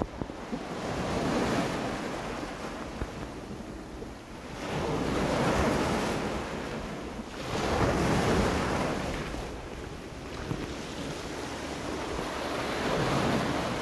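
Sea waves surging up the beach and washing around the wader's legs, in four swells a few seconds apart, with wind rumbling on the microphone.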